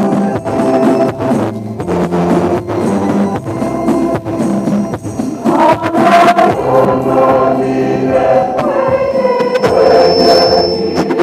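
Church choir singing a communion hymn with instrumental accompaniment and a steady beat; the voices come in stronger about halfway through.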